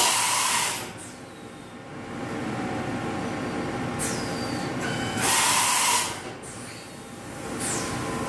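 Vertical machining center running an automatic machining cycle: a steady mechanical hum with two loud hissing bursts about five seconds apart, each dropping away to a quieter spell, and a brief falling whine shortly before the second burst and again near the end.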